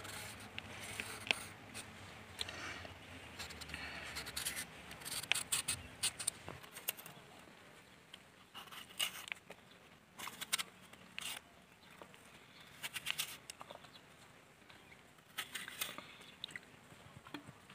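Kitchen knife peeling a cucumber and then cutting an apple held in the hand: clusters of short scraping and slicing sounds every couple of seconds.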